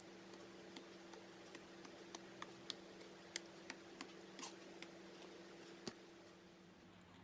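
Blueberry slime being squeezed and poked by hand, making faint, irregular little pops and clicks, about a dozen of them, over a steady low hum.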